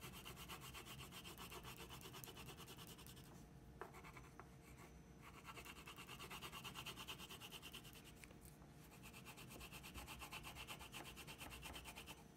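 Yellow-green wax crayon scribbled rapidly back and forth on paper, a faint, quick rhythmic rubbing with a couple of brief lulls.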